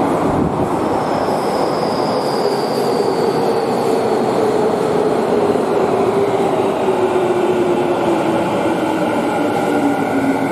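Electric subway train pulling into an underground station and braking, its heavy running and wheel noise overlaid by a motor whine that falls steadily in pitch as it slows.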